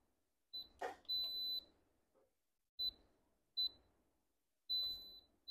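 Sanyo pressure rice cooker's control panel beeping as its buttons are pressed: several short high beeps and two longer ones, with a sharp click about a second in. The cooker is being set going, and it starts running.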